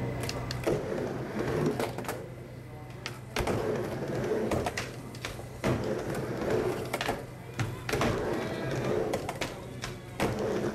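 Skateboard wheels rolling back and forth across a concrete mini ramp, the rumble swelling and fading with each pass. Sharp clacks of the board and trucks striking the coping come at each lip, with a steady low hum underneath.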